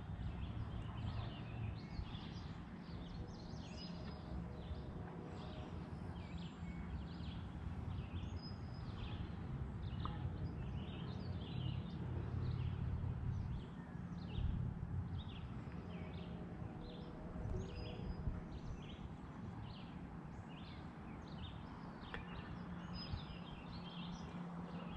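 Faint outdoor ambience: a steady low hum under a long run of short, high chirps, about two a second.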